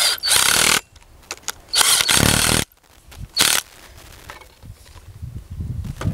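Cordless power driver spinning the nuts down on a U-bolt wire rope clip to clamp a steel tree-support cable tight. It runs in four short bursts in the first few seconds, the longest about a second long and stopping abruptly.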